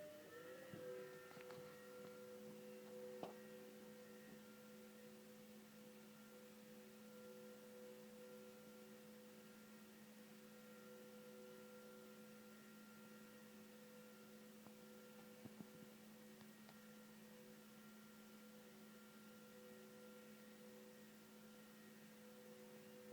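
Apple Mac SE (SuperDrive model) running with a steady whirring hum made of several fixed tones, which rise in pitch and settle within the first second. The owner is unsure whether the whir comes from the cooling fan or the hard drive.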